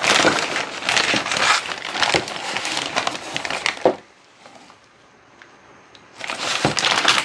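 Plastic packaging crinkling and rustling as small parts are unwrapped by hand, in two spells with a quieter lull in between.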